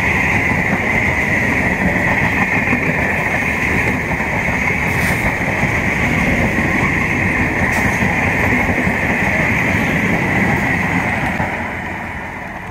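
Electric multiple unit (EMU) local train passing at close range: the steady rumble and rail noise of its coaches running by, with a steady high-pitched hiss over it, dying away near the end.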